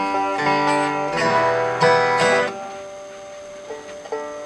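Acoustic guitar and banjo playing bluegrass together. Strummed chords ring out loudly for the first two and a half seconds, then the playing drops to softer picked notes.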